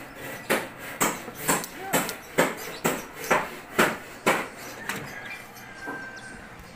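Hammering on a construction site: about ten sharp, evenly spaced strikes, roughly two a second, stopping about five seconds in.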